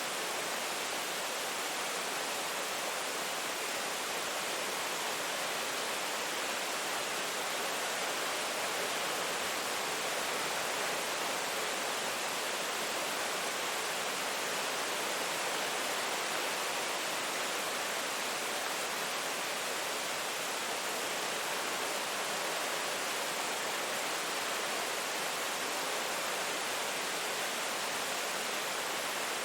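Rain falling steadily: a dense, even hiss with no single drops or changes standing out.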